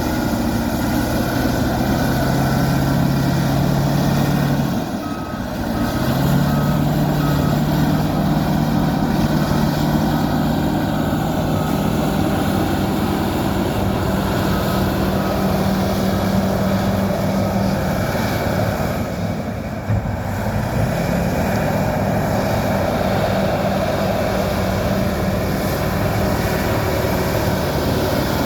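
Fiat-Kobelco FD300 bulldozer's diesel engine running steadily, its revs stepping up and down, with two brief drops in engine sound, about five seconds in and about two-thirds of the way through. A reversing alarm beeps steadily for several seconds after the first drop.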